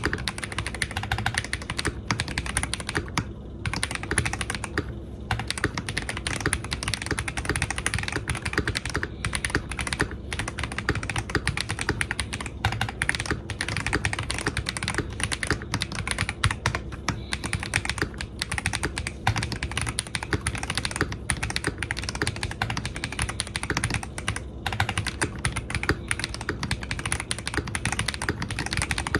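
NJ80 mechanical keyboard being typed on fast and continuously, a dense stream of key clacks: tactile Holy Panda switches under Cherry-profile PBT keycaps on a polycarbonate plate.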